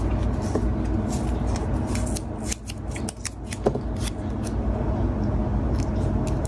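Masking tape and a small plastic model part being handled: irregular light clicks, rustles and crinkles as the tape is pressed and worked around the part, over a steady low hum.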